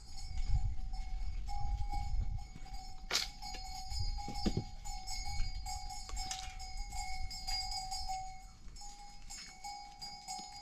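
Metal bells ringing on and off, with a low rumble underneath and a sharp click about three seconds in.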